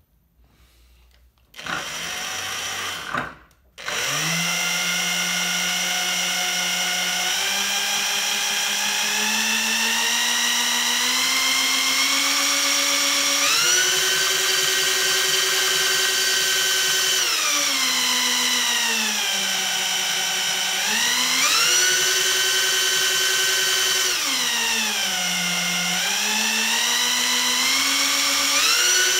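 Power drill spinning the shaft of a three-phase induction motor used as an alternator, which is lighting a bank of LED bulbs. After a short start about two seconds in, the drill runs on from about four seconds with a steady whine that climbs slowly, then rises and falls in pitch several times as its speed changes.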